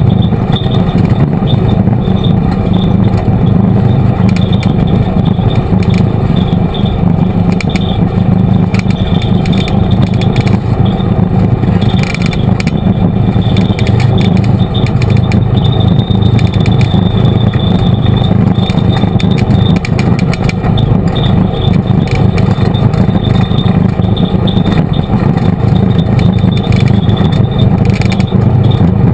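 Side-by-side UTV driving steadily along a dirt trail: loud, constant engine and drivetrain noise with light rattling throughout.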